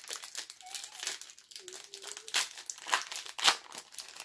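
Foil trading-card booster pack wrapper crinkling in the hands as it is opened, a dense run of irregular crackles with a few sharper loud crinkles in the second half.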